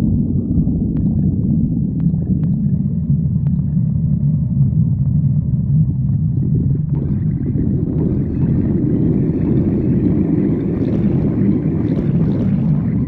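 Human stomach growling: a continuous low rumble that grows fuller and brighter from about seven seconds in, with a few faint clicks early on.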